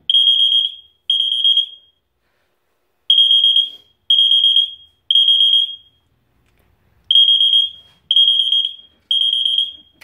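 System Sensor PA400R piezo fire alarm sounding a high-pitched tone in the temporal Code 3 pattern: three beeps of just under a second each, then a pause, repeating. The MDL sync module is coding the alarm to Code 3 instead of a continuous tone.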